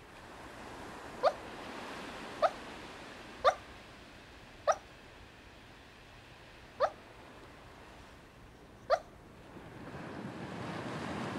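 A Jack Russell terrier barking in single short, sharp, high barks, six in all, spaced one to two seconds apart. Near the end the wash of waves breaking on a shore rises in underneath.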